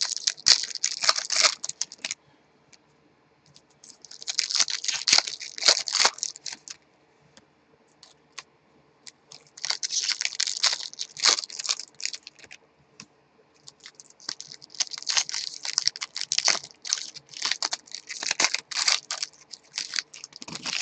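Foil trading-card pack wrappers being torn open and crinkled, in four bursts of crackling a few seconds apart.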